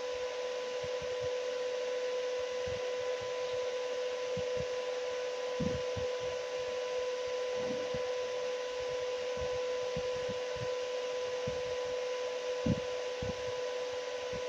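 Steady electrical hum with a faint fan-like hiss, broken by scattered light taps and knocks while the charging jack's pins are soldered.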